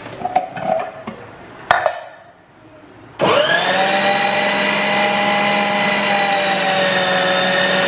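A few light clicks and knocks from handling the food processor, then about three seconds in its motor switches on, spins up quickly and runs at a steady pitch. The plastic dough blade is turning flour as it is mixed into chapati dough.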